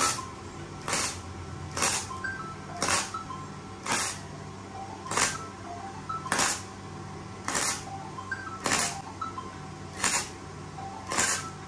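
KOBE MIG-272K gasless flux-core MIG welder stitch-welding thin stainless tube under 1 mm thick at reduced amperage. The arc crackles in about a dozen short bursts, roughly one a second, over background music.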